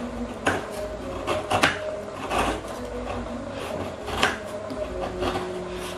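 Kitchen knife cutting a hard block of palm sugar on a wooden cutting board: irregular knocks and scrapes as the blade presses through and hits the board.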